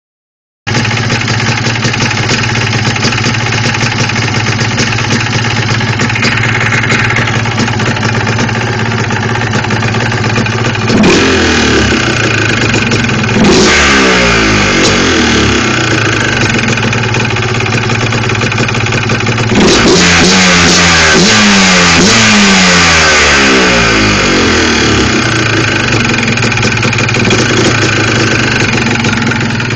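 Yamaha Blaster ATV's two-stroke single-cylinder engine idling, then revved up and down in two spells, a short one about a third of the way in and a longer run of blips past the middle, before settling back to idle. The engine has a knock that the owner takes for piston slap.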